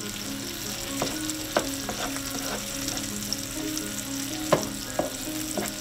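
Salmon fillets, garlic and vegetables frying in butter and olive oil in a skillet: a steady sizzling hiss with a few sharp pops.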